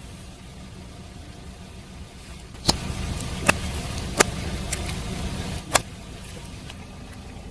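Car engine running at low revs, with a steady low rumble. About a third of the way in the rumble grows louder for roughly three seconds, with five sharp cracks spread through that stretch, the last the loudest.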